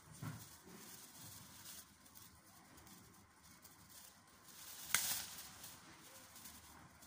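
Faint handling noise of adhesive tape being wound and pressed around a grafted citrus branch, with a soft bump just after the start and one sharp crackle about five seconds in.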